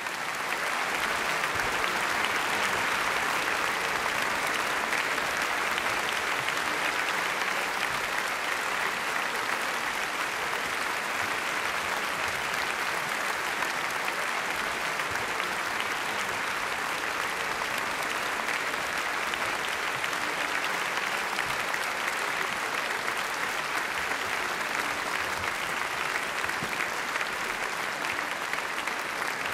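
Large theatre audience applauding, the ovation at the end of a ballet performance. The applause rises quickly in the first second, then holds steady.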